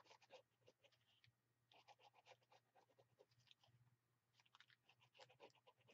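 Near silence with faint, quick scratching ticks in three short runs.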